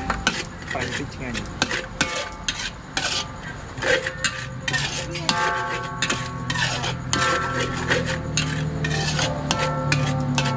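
Metal spatula scraping and clanking against a large metal wok in repeated strokes while vegetables are stir-fried, with a light sizzle.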